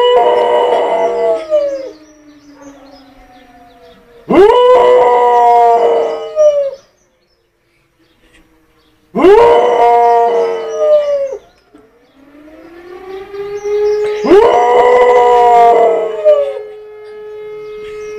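A dog howling: a long howl trailing off at the start, then three more about five seconds apart, each swooping up and trailing off. A fainter steady wailing tone comes in between the later howls and runs to the end.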